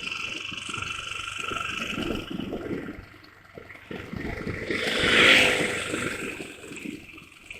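Motorcycle riding noise of engine and wind heard through an action camera's microphone, its level rising and falling unsteadily, dipping about three seconds in and swelling loudly around five seconds in; the uploader blames the uneven level on the camera's automatic noise reduction.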